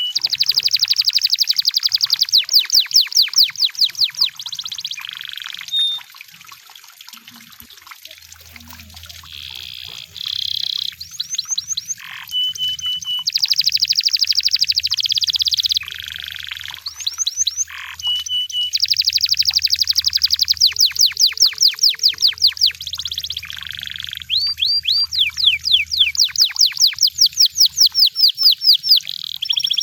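Canary singing: long runs of rapidly repeated, falling whistled notes and trills, broken by short steady whistled notes and brief pauses.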